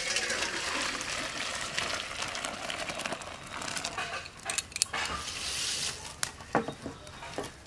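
Cooked khesari (grass pea) dal being poured from the cooking pot into a stainless steel bowl, a steady splashing pour that starts suddenly. Several sharp clinks follow in the second half, as metal knocks against metal.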